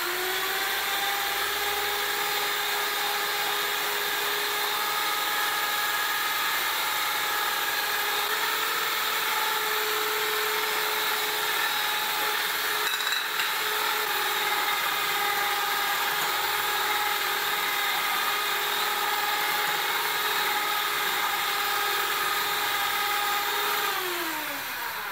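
Electric hand mixer running at high speed, its beaters whipping egg whites and sugar into a meringue toward soft peaks. A steady motor whine that drops in pitch and winds down near the end as the mixer is switched off.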